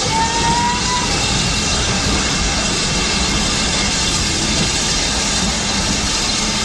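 Vintage Metropolitan Railway Ashbury carriages rolling past close by as the train pulls out: a steady rumble and clatter of wheels on the rails.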